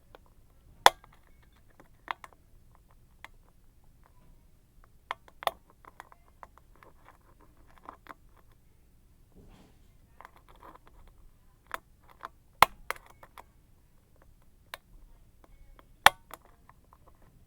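Hook pick and tension wrench working the pin stack of an Abus 55/40 brass padlock. Sharp metallic clicks come at irregular intervals, several seconds apart, with a cluster of three about twelve seconds in, and faint scratching between them.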